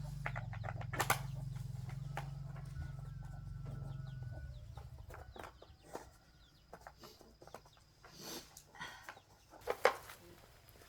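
A 750 W electric motor hums steadily, then stops about four and a half seconds in. Scattered short clicks and knocks run on after it.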